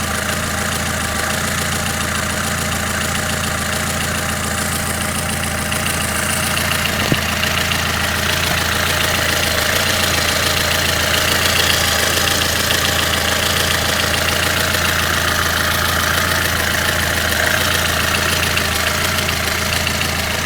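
Lada Kalina's engine idling steadily at operating temperature, with the light knocking the owner reports. A single sharp click about seven seconds in.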